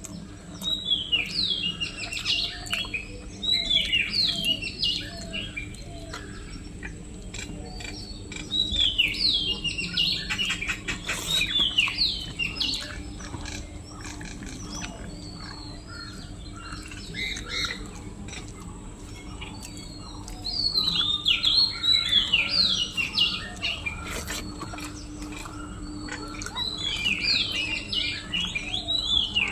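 Birds chirping in several bursts of quick, falling chirps, with scattered small clicks and a steady low hum underneath.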